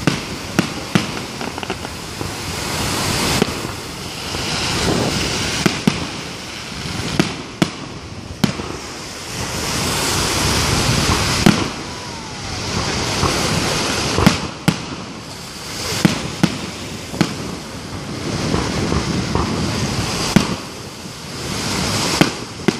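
Aerial firework shells bursting one after another, with sharp bangs roughly every second. Between the bangs, stretches of rushing, hissing noise swell and fade every few seconds.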